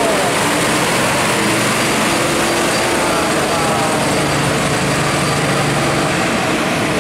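Diesel engine of a Nissan Diesel (UD Trucks) CWA260 tandem-axle dump truck running loudly and steadily as the truck rounds a bend close by and pulls away.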